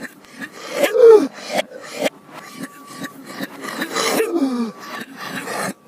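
An adult's whooping-cough paroxysm played backwards: a rapid string of short coughs with a falling whoop about a second in, the loudest moment, and another past four seconds. The hacking cough fits and whoops are the sign of pertussis.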